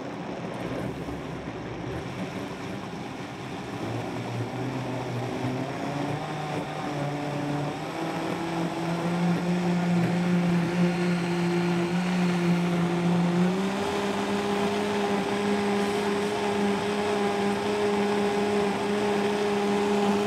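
Upright variable-speed blender puréeing broccoli soup, its motor pitch rising step by step as the speed dial is slowly turned up from the lowest setting, with a last step up about two-thirds of the way through, then running steady at the higher speed.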